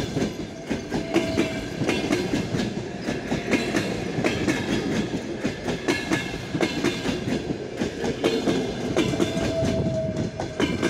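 Passenger train coaches passing close by at speed: wheels clattering over the rail joints in a rapid, irregular stream of clicks over a steady rolling rumble.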